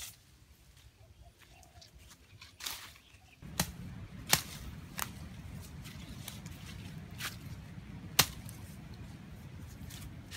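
A series of sharp knocks or cracks at irregular intervals, some of them loud, over a low steady background rumble that sets in a few seconds in.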